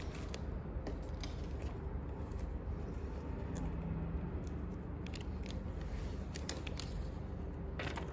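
Hands handling a plastic bubble mailer and a paper shipping label being peeled from its backing: scattered small crinkles and clicks, with a louder crackle near the end, over a steady low hum.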